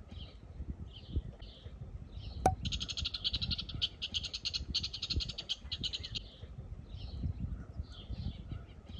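High-pitched outdoor animal calls: short chirps repeating about once or twice a second, with a rapid buzzing trill lasting about three and a half seconds in the middle. A sharp click comes about two and a half seconds in.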